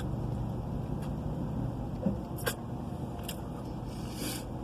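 Low steady hum inside a parked car, with a few faint clicks and a short rustle near the end.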